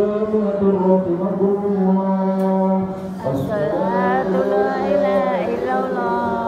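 A man chanting the Islamic prayer call of Eid al-Fitr in long, held, melodic phrases, the pitch gliding within each phrase; a short pause about three seconds in.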